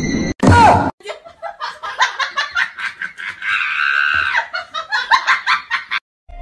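A person laughing hard in a long run of rapid ha-ha bursts, rising into a higher held laugh partway through. A brief loud burst of noise comes just before the laughter starts.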